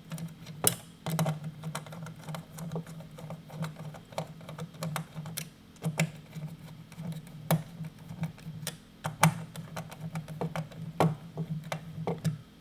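Irregular clicks and taps of hands and a tool working a plastic pump-controller housing while a strain relief bushing is tightened down, over a low steady hum.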